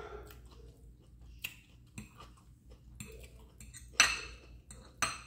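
Metal fork clinking and scraping against a ceramic plate while picking up food: several sharp clinks, the loudest two about four and five seconds in.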